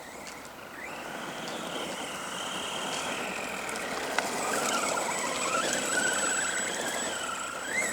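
Brushless motor and drivetrain of an Arrma Granite BLX 3S RC truck whining as it drives on half throttle, the pitch wavering with the throttle and rising sharply near the end.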